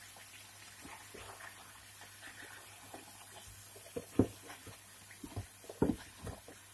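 Chicken pieces being turned in a non-stick frying pan with a plastic slotted spatula: soft scrapes and a few knocks of the spatula against the pan and meat, the loudest about four seconds in and again near six seconds, over a faint steady frying sizzle.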